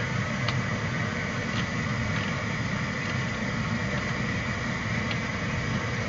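Steady flight-deck noise of a CRJ 700 taxiing: its engines and air noise make an even hum and hiss, with a few faint clicks.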